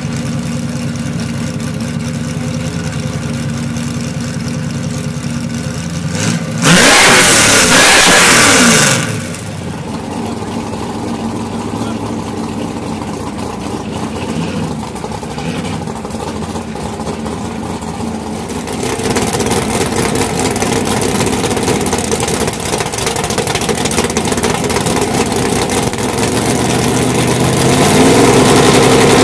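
Car engines idling with steady tones, broken about seven seconds in by a loud blast of engine noise lasting about two seconds, its pitch falling away as it ends. The engines run louder again from about twenty seconds in, with a rising rev near the end.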